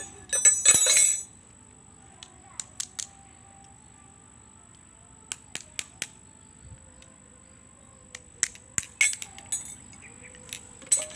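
Metal tools and engine parts being handled during a generator engine teardown: a loud rattling clatter about half a second in, then scattered sharp clicks and clinks in small groups.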